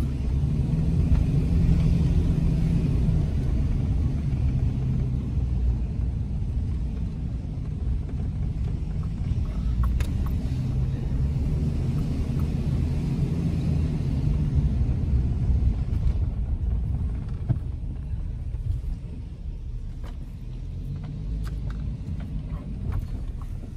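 Car engine and tyre noise heard from inside the cabin while driving: a steady low rumble that eases slightly about two-thirds of the way through, with a few faint clicks.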